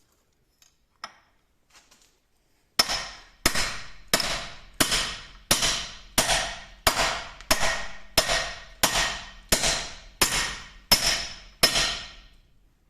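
Hammer blows on a length of round tube, driving a new lower ball joint up into a Ford Transit's wishbone. About fourteen even, ringing metal strikes, roughly one and a half a second, start about three seconds in after a few light clicks.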